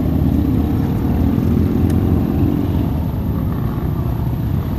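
Motorcycle engines running as a line of motorcycles rides past, a steady low engine sound, with a short click about two seconds in.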